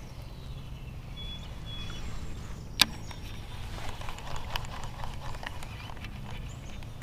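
Low steady outdoor rumble with one sharp click about three seconds in and scattered light ticks afterwards, as an angler works a topwater lure back on a baitcasting reel.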